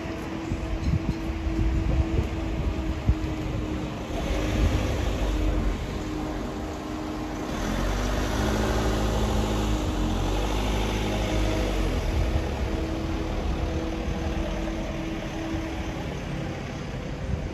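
A motor vehicle's engine running, a steady hum that grows louder for a few seconds in the middle and then eases off, as when a vehicle passes.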